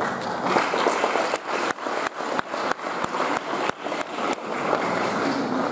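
Audience applauding, a dense patter of many hands clapping with a few sharper claps standing out, tapering off near the end.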